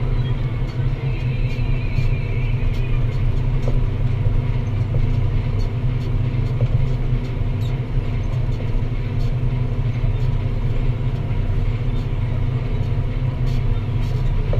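Deutz-Fahr Agrotron 165 MK3 tractor's six-cylinder diesel engine running steadily under load while pulling a plough, a deep drone that holds an even pitch.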